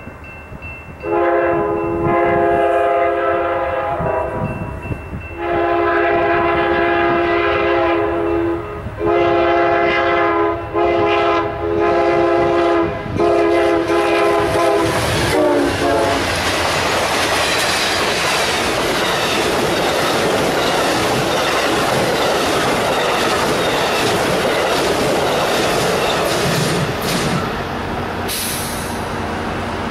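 Amtrak GE P42 Genesis locomotive horn sounding the grade-crossing signal as the train approaches: two long blasts, a short one, then a long one. Then the loud rush and clatter of the passenger train's wheels on the rails as it passes at speed.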